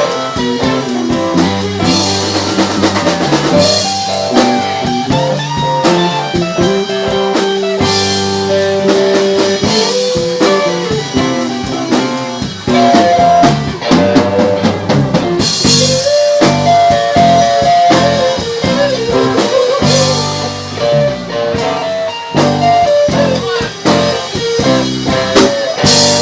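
A band playing an instrumental blues passage, with guitar lines over a drum kit.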